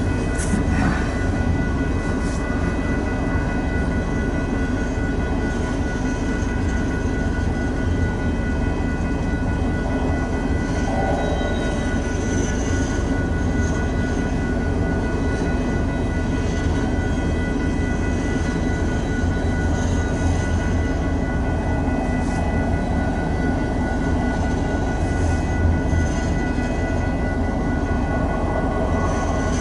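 Freight train of empty ethanol tank cars rolling past: a steady rumble of wheels on rail, with a faint steady high ringing tone above it and an occasional light click.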